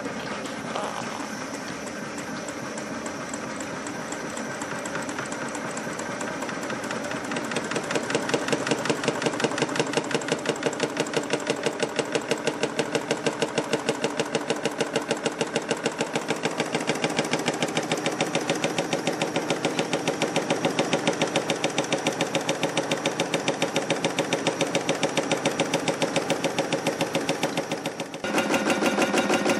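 Homemade Stirling engine running, its flywheel and displacer drive linkage making a steady, rapid, rhythmic clatter that grows louder about seven seconds in.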